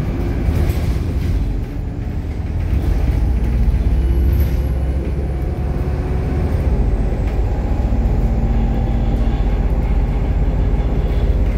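Bus engine and road noise heard from inside the moving bus: a steady low rumble with engine tones that come and go.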